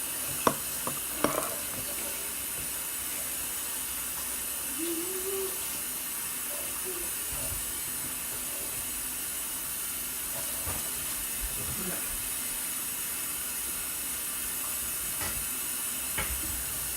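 Steady hiss with a few faint clicks about half a second and a second in.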